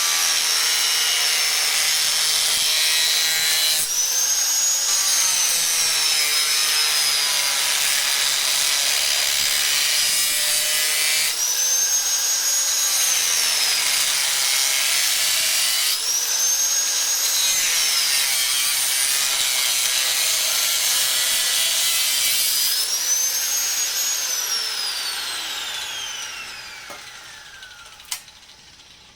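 Electric grinder working the steel of an old saw blade: a loud gritty rush with a high whine that sags in pitch under load and jumps back up when the tool is eased off, several times. Near the end it is switched off and the whine falls steadily as it winds down to a stop.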